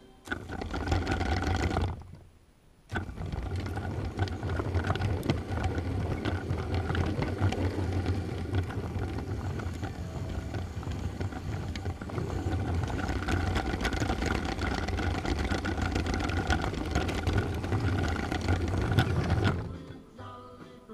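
Lego train's electric motor whirring, with its wheels rumbling along the plastic track, heard close up from on board. It drops out briefly about two seconds in, then runs on steadily.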